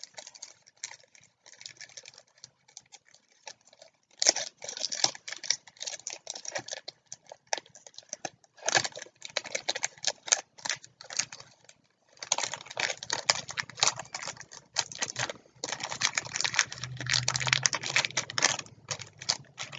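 Trading cards and their packaging being handled: bursts of small clicks, flicks and crinkles as cards are shuffled and slid against each other.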